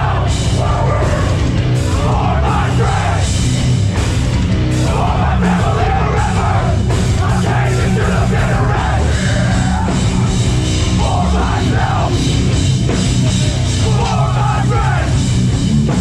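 Live hardcore band playing loud, with heavily distorted guitars, bass and pounding drums under shouted vocals that come in and out every few seconds.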